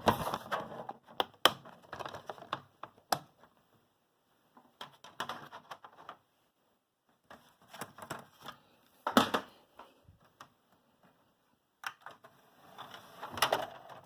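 Irregular plastic clicks and rattles from handling a DVD disc and its case, coming in short clusters with quiet gaps between.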